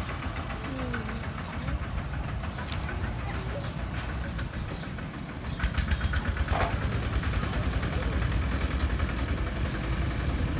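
Single-cylinder diesel engine of a Kubota two-wheel walking tractor running with a steady low chugging, getting louder about halfway through.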